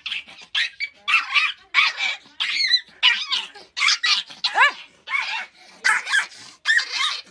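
A dog barking in a rapid series of short, high-pitched barks and yips, about two a second, with one longer yelp that slides in pitch midway.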